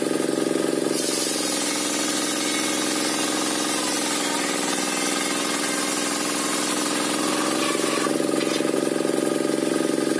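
Circular sawmill (serkel) ripping a waru log: a steady machine hum with the hiss of the blade cutting through the wood from about a second in, dropping back to the blade spinning free about eight seconds in.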